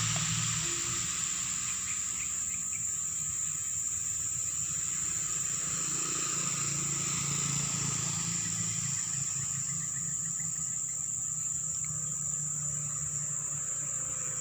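A steady, high-pitched drone of insects, with the low engine hum of passing motorcycles coming and going beneath it.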